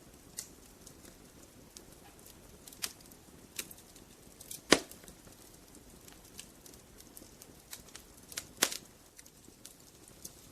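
Logs burning in a fireplace, crackling with scattered sharp pops over a faint hiss; two much louder pops come about halfway through and near the end.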